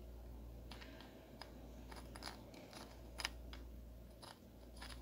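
Faint, irregular small clicks and scratches of a rough stone being handled and turned against a flashlight, about a dozen over a few seconds, the sharpest a little past three seconds in, over a steady low hum.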